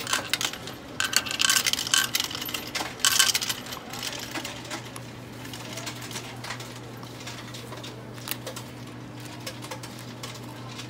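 Coins fed into a self-checkout's coin slot, clinking and rattling as they drop through into the coin hopper. The clinking is densest and loudest in the first three seconds or so, then thins to a few faint clicks. A low steady hum runs underneath.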